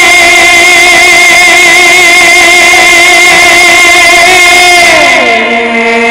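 Male naat singing through microphones and loudspeakers: one long held note that slides down to a lower held note about five seconds in.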